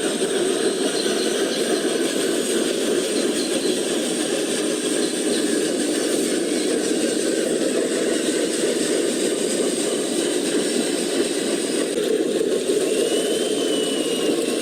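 Radio-controlled model truck running: a steady engine-like hum with a thin, constant high-pitched whine above it.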